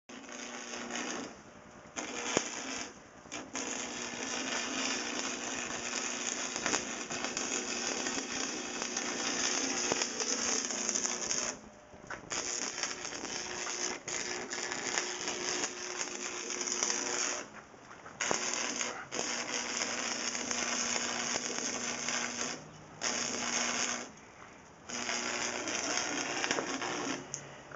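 Arc welder crackling as a bead is laid on steel angle, with a steady low hum beneath. It runs in several stretches, the longest about eight seconds, each broken off by a short pause where the arc is stopped and struck again.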